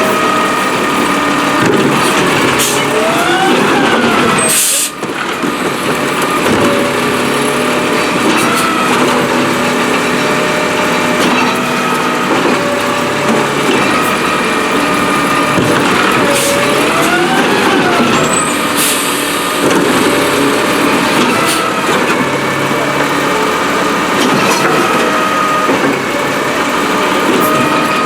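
Peterbilt 320 refuse truck with a New Way Rotopac body running, with steady whining tones over the engine that rise and fall in pitch every so often. There is a brief break in the sound about five seconds in.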